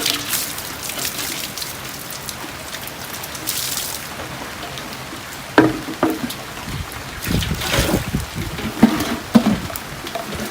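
Steady heavy rain falling, with water trickling, and a few short knocks and clatters in the second half.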